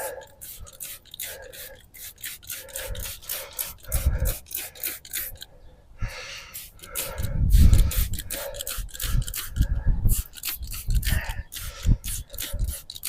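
Quick, repeated rubbing and scraping from a tire being handled and wetted with soapy water during a leak check, with a few low thuds.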